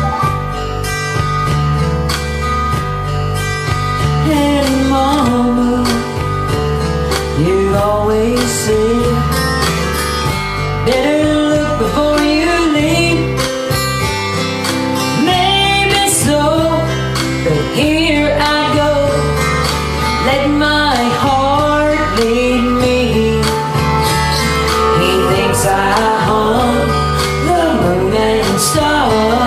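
Karaoke: a woman singing along to a country-style backing track with acoustic guitar. The first few seconds are the guitar accompaniment alone, and the voice comes in about four seconds in.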